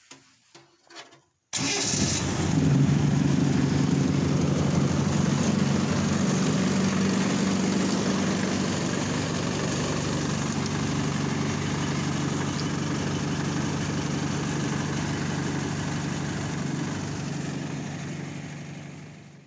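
Land Rover 200Tdi four-cylinder turbodiesel engine running steadily. It cuts in sharply about a second and a half in and fades out at the end.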